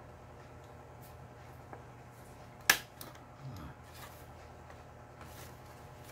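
A single sharp click about two and a half seconds in, with faint soft handling noises around it.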